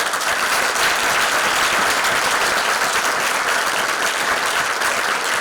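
Audience applauding in a concert hall, many people clapping steadily.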